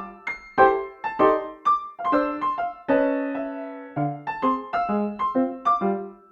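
Background music: a light piano tune of single plucked notes with a held chord about halfway through.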